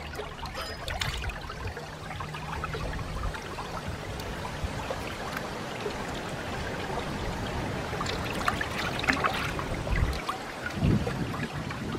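Shallow stream water trickling over rocks, with small splashes and drips as squid are rinsed and worked by hand in the water. A few louder splashes and knocks come near the end.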